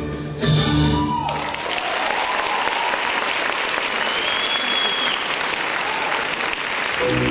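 Orchestral string music breaks off about a second in, and an audience breaks into steady applause; the music starts again near the end.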